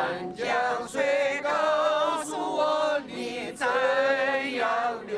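A group of people singing together, led by a woman, with long held notes.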